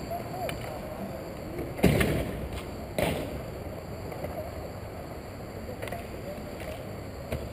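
Roller hockey play: inline skate wheels rolling on the rink surface, with two sharp knocks about two and three seconds in.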